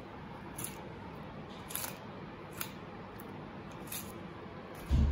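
Butter knife scraping down a coral trout's rib cage as the fillet is cut away, in about four short strokes roughly a second apart. A dull thump comes near the end.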